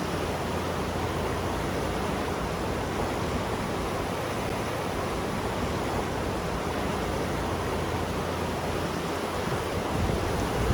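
River current rushing, a steady even wash of water noise. Wind buffets the microphone with a low rumble near the end.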